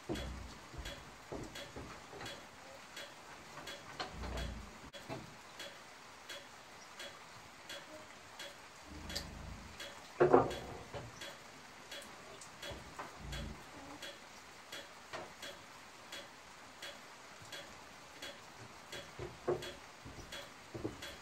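Steady light ticking, about two ticks a second, under footsteps on a wooden plank floor, with a louder wooden clunk about ten seconds in as something is handled on a wooden shelf.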